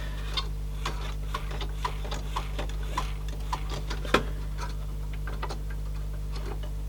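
Small irregular clicks and taps of hands and tools working on an open CD player mechanism, one sharper knock about four seconds in, over a steady low hum.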